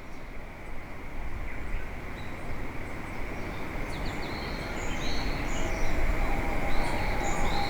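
Ambient soundscape: a low, noisy rumble swells in, joined about halfway by repeated short bird-like chirps. Two steady held tones enter near the end.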